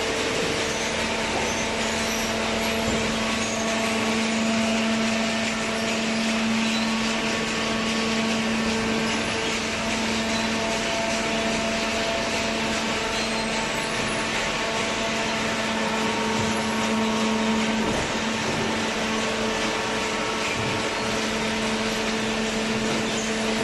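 Hydraulic baler's power unit running steadily, a constant machine hum with several held tones over a hiss.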